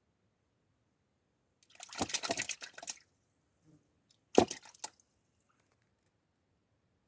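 Wet splashing and squishing in two short bouts: a crackly run of it, then a sharp slap followed by a few smaller splashes.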